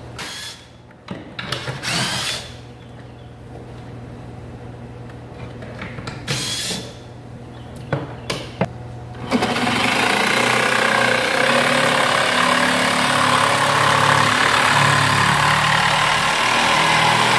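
A cordless drill whirs in several short bursts on the screws of the cabinet's toe kick. About nine seconds in, a corded jigsaw starts and cuts steadily through the wooden toe kick, making a hole for an HVAC vent.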